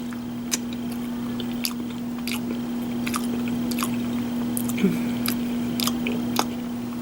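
A person chewing deviled eggs close to the microphone: soft, wet mouth clicks and smacks every half second or so, over a steady low hum.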